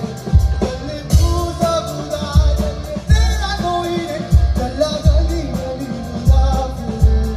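Live rock band playing: a male vocalist singing over drums, guitars and keyboard. The kick drum hits in pairs about every two seconds under a steady hi-hat.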